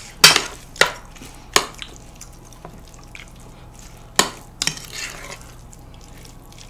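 A spoon stirs and tosses sauced jjolmyeon noodles in a large bowl. About five sharp clinks of the spoon against the bowl stand out, most of them in the first two seconds, with softer stirring between.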